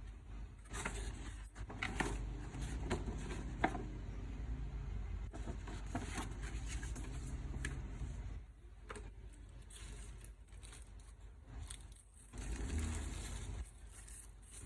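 Shoe box and packaging being handled: irregular rustling, scraping and sharp taps over a steady low rumble.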